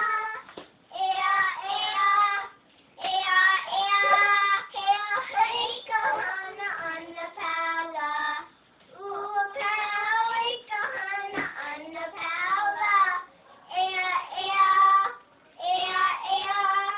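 Young girl singing a song in short phrases with brief pauses between them, the notes held and clearly pitched.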